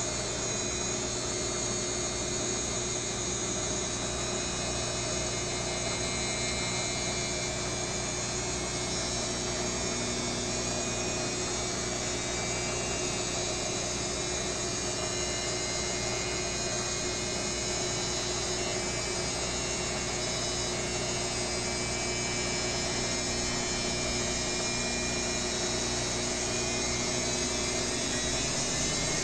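Washing machine running a spin, a steady motor hum and whine that grows slightly louder near the end as the drum speeds up.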